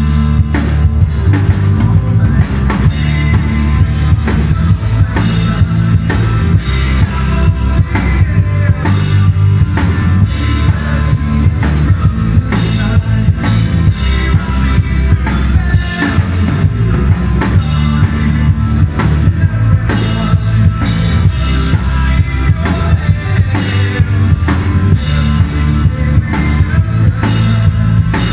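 Live rock band playing loud, with electric guitars and a drum kit keeping a steady beat.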